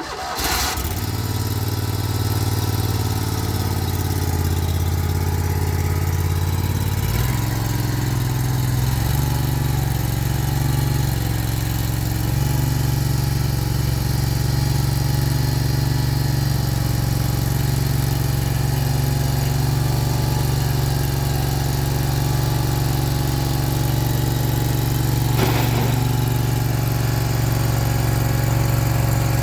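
Stump grinder's small gasoline engine starting and running steadily, its note shifting about seven to nine seconds in as the throttle is changed.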